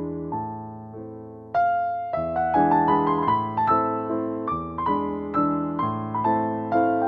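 Background piano music: a gentle melody over sustained chords, swelling back up after a brief softer passage about a second and a half in.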